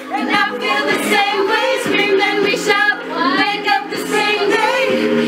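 Music with singing: voices singing over steady sustained chords.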